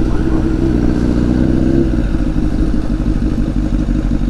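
Honda CBR1000RR's inline-four engine running at low revs as the bike rolls slowly, with a steady engine note that eases down about two seconds in.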